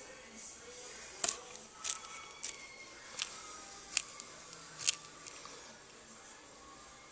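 Knob-tailed gecko crunching a dubia roach in its jaws: about six sharp crunches, irregularly spaced over the first five seconds, then chewing stops.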